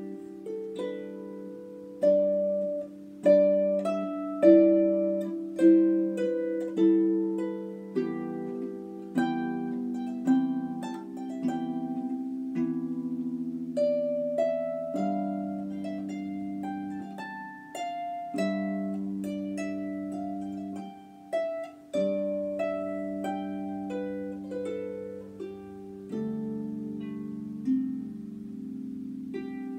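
Solo harp playing a slow lament, its plucked melody notes and low chords each ringing out and fading.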